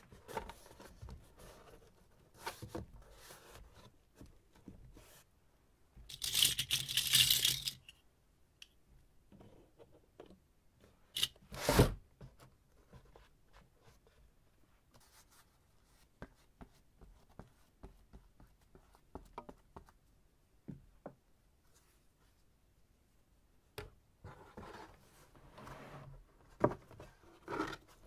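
Cardboard being torn in a loud rip lasting about two seconds, roughly six seconds in, then a single sharp knock around twelve seconds, with light scraping and handling noises.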